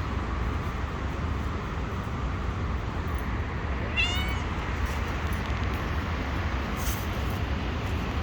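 A cat gives one short, high meow about four seconds in, over a steady low rumble.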